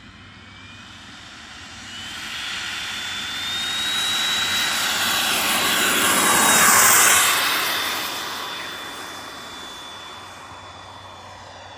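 Xicoy 45 turbine in a radio-controlled HSD T-33 model jet flying past: a thin high whine that climbs in pitch over the first few seconds and then holds steady, over a rushing jet sound that swells to its loudest about seven seconds in and then fades.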